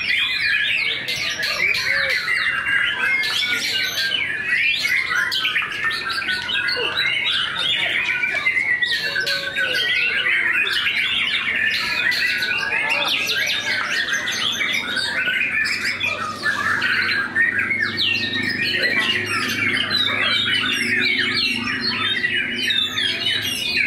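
White-rumped shamas (murai batu) singing, several birds at once: a dense, unbroken stream of fast whistles, trills and chattering notes.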